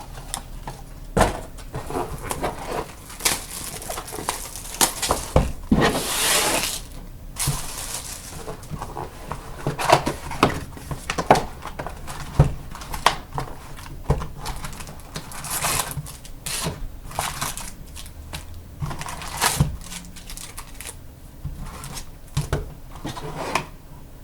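Trading card boxes being handled and unwrapped: plastic wrap and cardboard crinkling and tearing, with scattered taps and knocks, and a longer stretch of crinkling about six seconds in.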